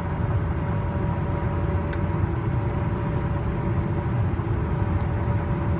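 Steady tyre and road noise of a vehicle cruising on an interstate highway: a constant low rumble with a faint steady whine running through it.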